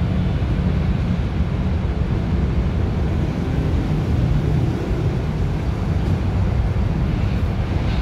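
Transjakarta Minitrans medium bus driving up and pulling in to the stop, its engine a steady low rumble mixed with road traffic.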